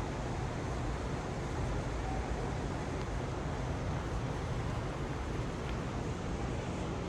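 Steady low rumble and hiss of an underground subway platform, with no distinct events.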